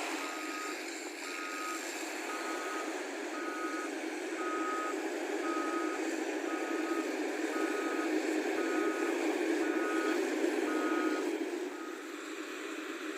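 Reversing alarm on a diesel construction vehicle beeping steadily about once a second over its running engine, stopping shortly before the end.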